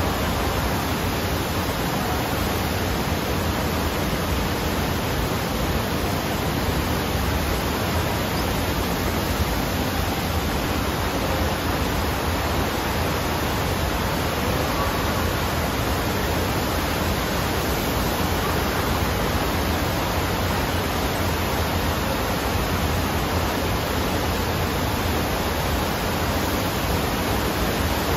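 Indoor surf simulator's sheet wave: a thin layer of pumped water rushing steadily up and over the ramp, a constant rush of water noise.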